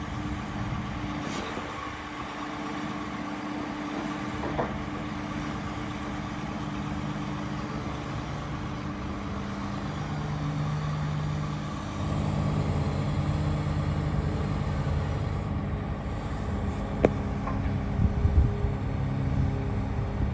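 2021 Cat 349 hydraulic excavator's diesel engine running while its hydraulics work the boom and bucket. About twelve seconds in the engine note steps up and grows louder, and a few clunks come near the end.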